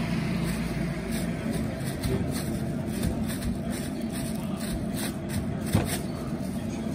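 Steady low background rumble, with a few faint short taps and rustles over it about five to six seconds in.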